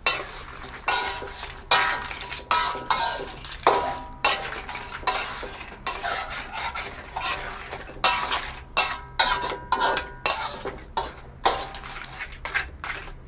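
A metal wok spatula scraping and knocking against a metal wok as blue crab pieces are stir-fried in a curry sauce, in irregular strokes several times a second.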